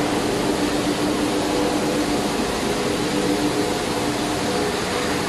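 Steady drone of running machinery: a constant rushing noise with several steady hum tones and no change in level.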